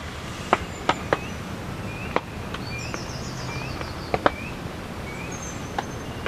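Forest ambience: a bird repeats a short, upward-hooked chirp about every half second, with a brief high buzzy trill partway through, over a steady background hiss. Scattered sharp clicks or ticks are heard throughout.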